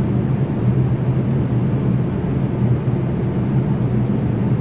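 A steady, loud, low mechanical drone with an unchanging hum, like an engine or machinery running nearby.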